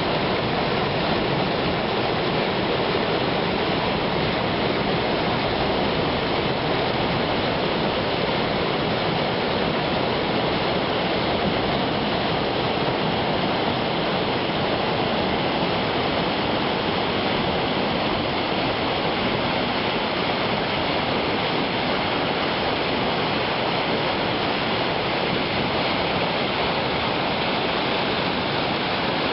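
Rushing river water: a steady, unbroken rush with no breaks or changes.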